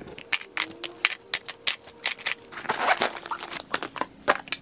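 Small items being handled and packed into a zippered pouch: a quick, irregular run of sharp clicks and taps, with a short rustle about three seconds in.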